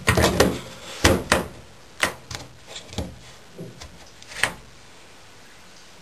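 Sharp plastic clicks and knocks from a Candy washing machine's fittings being handled, a quick cluster in the first second and a half, then single knocks about once a second, with a loud one near four and a half seconds.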